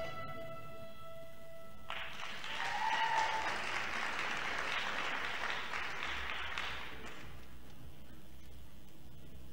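The last held note of the string music ends, then an audience applauds for about five seconds, dying away near the end.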